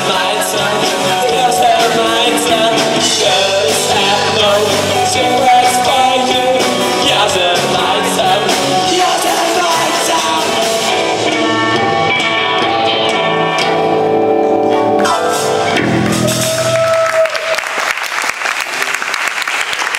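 Live rock band playing with electric guitars, drums, keyboard and a singer. About sixteen seconds in the song ends with a falling glide and a last held note, and the audience breaks into applause.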